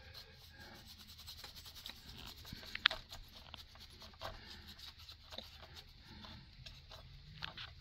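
Faint, scratchy rubbing of a brush worked over an HO brass model locomotive, dusting excess pastel powder off the body, with small ticks and one sharper click about three seconds in.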